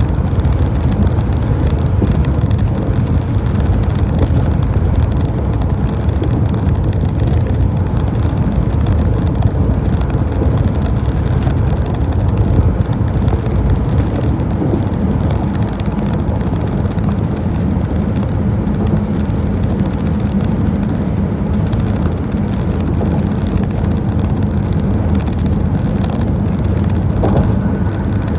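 Car driving steadily at speed: a continuous, even rumble of tyres, engine and wind.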